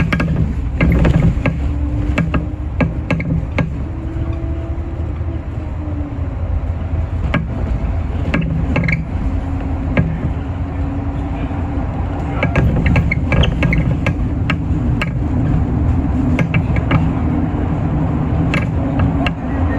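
City bus driving along, heard from inside the cabin near the front: a steady drivetrain hum and road noise, with frequent short clicks and rattles from the bus's interior fittings.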